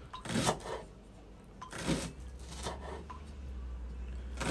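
Kitchen knife slicing through a thick Japanese long green onion onto a wooden cutting board, a few unhurried cuts about a second apart. A low steady hum comes in about two seconds in.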